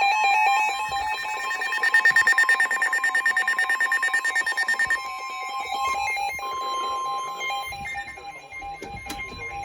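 Emergency Alert System attention tone ahead of a Special Marine Warning: a steady electronic alarm tone of a few held pitches, pulsing rapidly for about the first five seconds, then sounding continuously.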